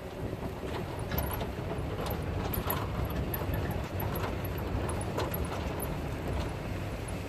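Low, steady rumble of a slow-moving vehicle and road noise, with scattered light clicks and knocks.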